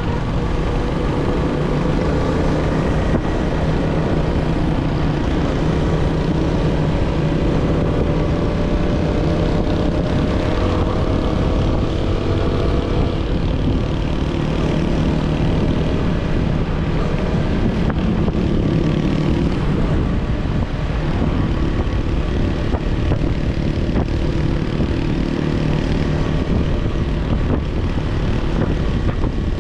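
Yamaha Sniper 155 motorcycle on its stock exhaust, its single-cylinder four-stroke engine running steadily under way, the engine note rising gradually over the first dozen seconds.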